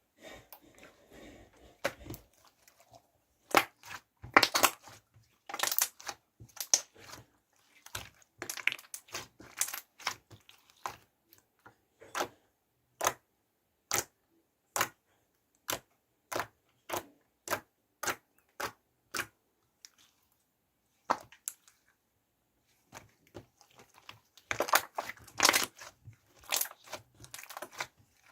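Slime being squeezed and stretched by hand, making sharp clicking pops. The pops come singly, about one or two a second, in the middle, with denser crackly runs of pops near the start and near the end.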